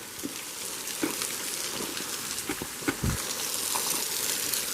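Steady hiss of running water, with a few scattered knocks and a low thump about three seconds in, like footsteps on rocky ground.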